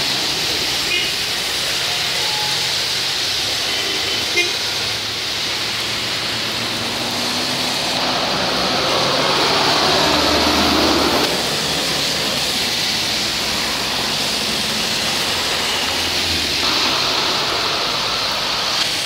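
Heavy rain hissing steadily on a flooded road, with cars and microbuses passing and their tyres swishing through the standing water. One passing vehicle swells louder about halfway through.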